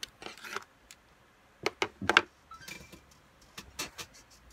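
Handling noise: scattered clicks, knocks and rustles, the loudest pair of knocks about two seconds in.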